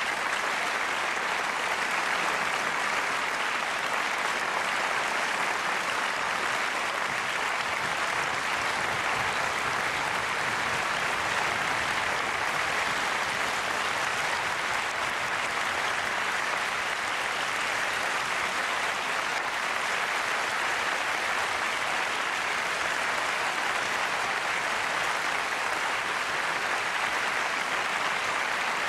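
Audience applauding, a steady, unbroken ovation.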